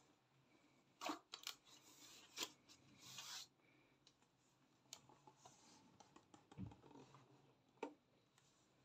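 Faint handling noises: a cluster of short clicks and scraping rustles, a soft low thump about six and a half seconds in, and a single sharp click near the end.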